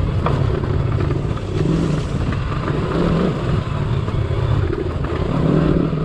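Motorcycle engine running under load on an off-road ride, its revs rising and falling.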